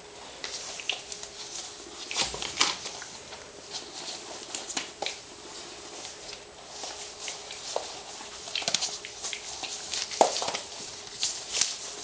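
Three-week-old puppies shuffling and scrabbling about on newspaper: irregular rustling and crinkling of paper and patter of small paws, with an occasional small puppy squeak.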